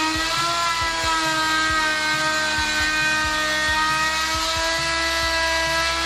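Handheld electric router running under load, its bit cutting a moulding profile along a wooden strip. A steady high whine whose pitch sags slightly as the bit bites, then holds.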